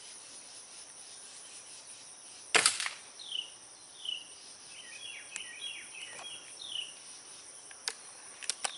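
Single shot from a Gamo Whisper Elite air rifle firing a .177 Daisy Precision Max pellet: one sharp crack about two and a half seconds in, with a few faint clicks near the end. Insects drone steadily in the background with short chirps.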